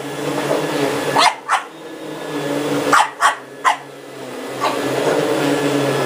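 A dog barking in short, sharp barks: a pair, then a quick run of three, then one more, over a vacuum cleaner running steadily.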